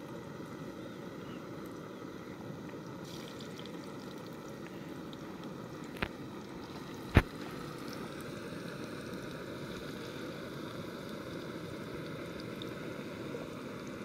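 Potato wedges frying in oil in a pan on a small gas canister camping stove: a steady bubbling sizzle with the burner's hiss. About six seconds in there is a light click, and a sharper knock follows about a second later.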